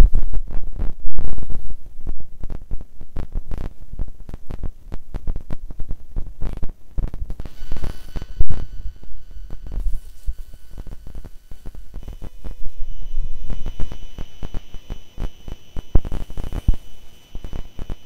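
Microphone handling noise with wind buffeting: irregular thumps, crackles and low rumble as the camera is moved about and set down on a rock slab. There are sharp jolts about a second in and again near the middle, and a few faint steady high tones later on.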